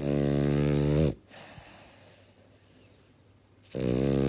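An animal's low, drawn-out call, given twice, each call lasting about a second and dropping slightly in pitch at its end.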